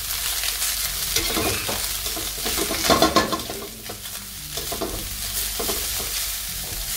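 Shredded cabbage, leeks and carrot sizzling in hot oil in a metal pan while a spatula stirs and turns them, scraping against the pan in irregular strokes, loudest in a quick flurry about three seconds in.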